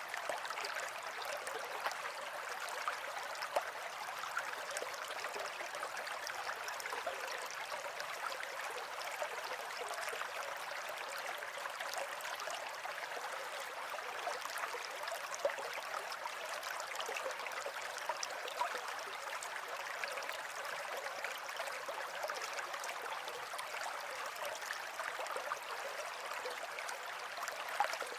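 Running water of a small stream, a steady splashing flow with small drips and splashes scattered through it.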